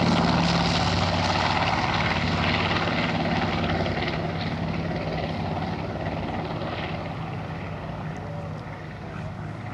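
North American B-25 Mitchell's two Wright R-2600 radial engines and propellers at full power as the bomber lifts off and climbs out, a steady drone that fades gradually as it flies away.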